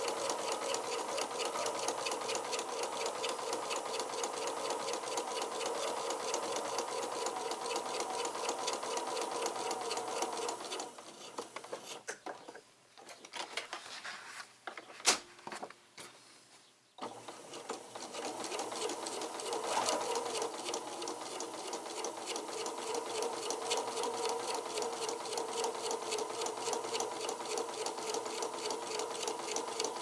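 Pfaff sewing machine stitching through paper and card, running with a rapid, even stitch rhythm. About a third of the way in it stops for some six seconds, with a few clicks and one sharp knock as the work is handled, then runs again.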